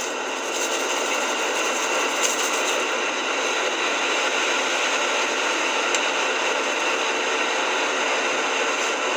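Electric fan heater running, a steady blowing whir with a faint constant hum.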